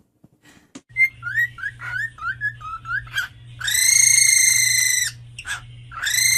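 Cockatiel whistling: a quick run of short rising chirping notes, then one long held whistle, with another long whistle starting near the end, over a low steady hum.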